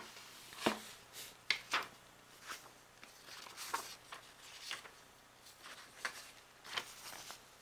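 Cardboard and paper being handled: a shoebox and a folded card booklet are moved and set down. The sound is an irregular run of short, quiet taps and rustles.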